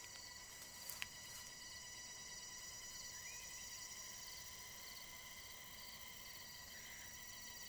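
Faint outdoor insect chirping, a pulsed trill repeating about once a second over a steady high whine, with a few short faint chirps and a small click about a second in.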